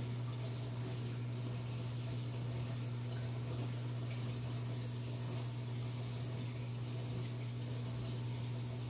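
Reef aquarium running: a steady low hum from its circulation pumps, with water running and trickling in the tank.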